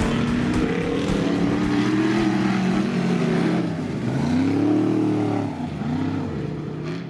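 Off-road race vehicle's engine revving hard, its pitch climbing and dropping a couple of times in the second half, then starting to fade out at the very end.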